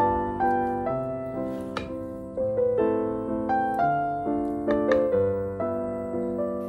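Background piano music: a slow melody of struck notes, each fading away, over lower chords.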